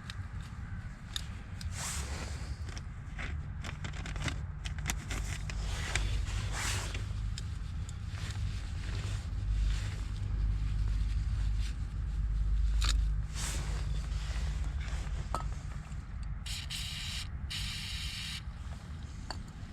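Scraping and rubbing of hands working on a car blower fan motor while cleaning blackened old oil out of its shaft bushings, over a steady low rumble. Two short hissing bursts come near the end.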